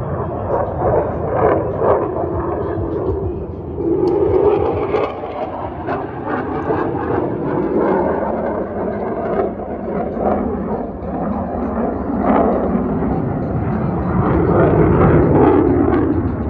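F-16 fighter jet flying overhead, heard from the ground: a continuous rough jet rumble that swells a little near the end.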